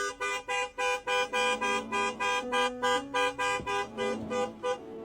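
A horn sounding in rapid short blasts, about four a second, stopping just before the end.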